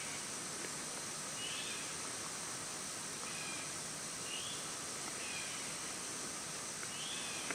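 Woodland ambience: a steady high-pitched insect chorus, with short chirping calls repeating roughly once a second.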